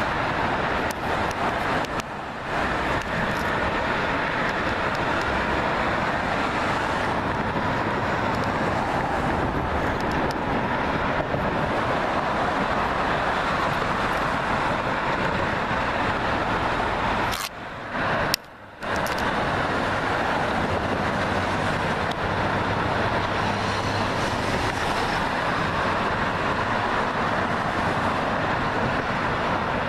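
Steady highway traffic noise, a continuous wash of tyre and engine sound, that drops out suddenly twice for a moment, about two seconds in and a little past halfway.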